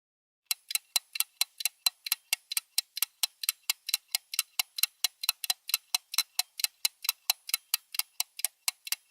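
Fast, even clock-like ticking, about five ticks a second, starting half a second in. It is a countdown-timer tick effect.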